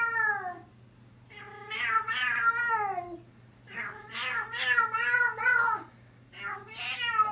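Cat meowing over and over: a string of about four long, drawn-out meows with wavering pitch, a short pause between each.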